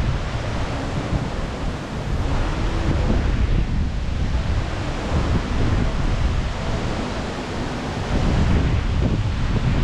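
Gusty wind blowing over the microphone: a steady rushing noise with heavy low rumbling buffets that swell and ease.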